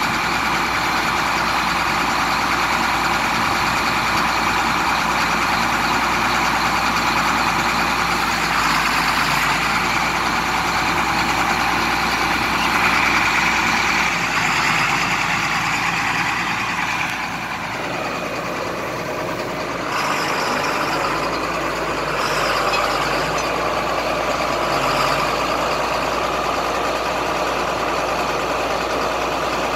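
John Deere 4960 tractor's six-cylinder diesel engine running steadily, heard close up at the rear of the tractor; the tone shifts and dips a little about two-thirds of the way through, then carries on.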